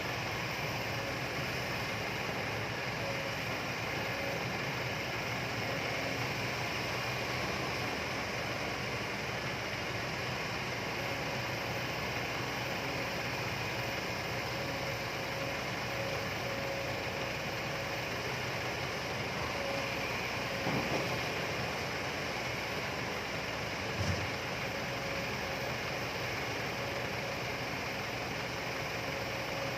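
Kobelco excavator's diesel engine running steadily, with a faint steady hum. Two brief knocks a few seconds apart come about two-thirds of the way through.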